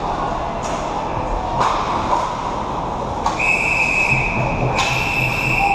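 Hockey referee's whistle blown in two long, shrill blasts, stopping play, over the noise of the rink. A couple of sharp knocks of sticks and puck come before it.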